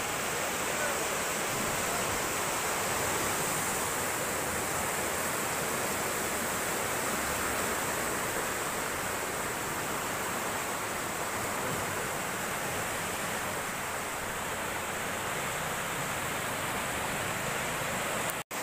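Fast floodwater of a swollen river rushing past bridge piers, a dense, steady hiss. It cuts out for an instant near the end.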